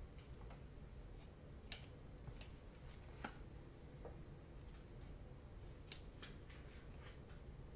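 Faint, irregular clicks and slides of glossy Panini Prizm trading cards being flipped one by one through a stack held in the hands.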